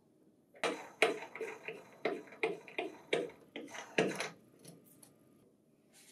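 Knurled leveling screws of a Lexmark printer cabinet being turned by hand: a run of about a dozen sharp ticks, roughly three a second. The ticks start about half a second in and stop after about four seconds.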